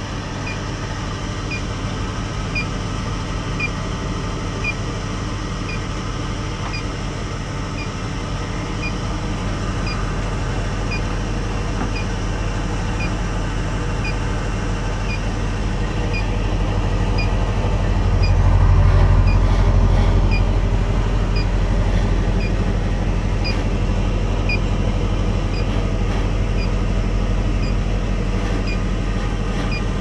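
Commercial refrigerator's condensing unit running: the hermetic compressor and condenser fan hum steadily, growing a little louder about two-thirds of the way in. A faint, regular tick sounds about once a second over the hum.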